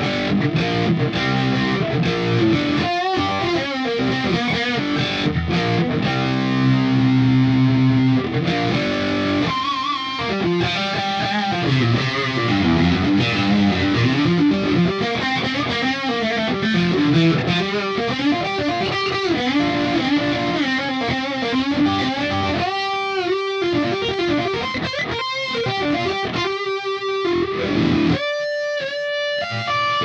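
Suhr Classic Pro electric guitar played through a Line 6 POD HD500 on a high-gain distorted tone. It opens with held chords and notes, moves into a lead line with bent notes and vibrato, and ends in fast, choppy runs broken by short stops.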